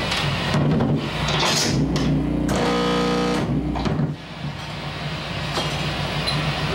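Distorted electronic noise through stacked amplifiers under a steady amp hum, with bursts of noise and, in the middle, a buzzing tone lasting about a second before the level drops slightly: a noise setup being tested before the set.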